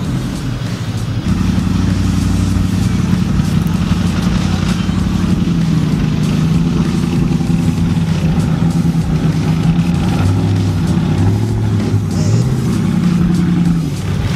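Pickup truck engines running under load during a tow-strap recovery from mud, under background music with a low, steady bass line.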